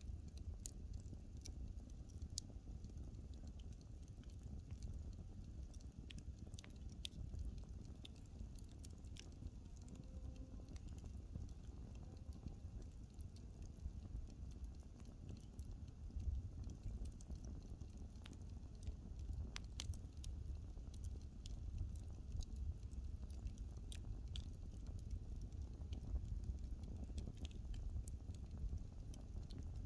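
Burning wood crackling: scattered sharp pops and snaps at irregular intervals over a low, steady rumble.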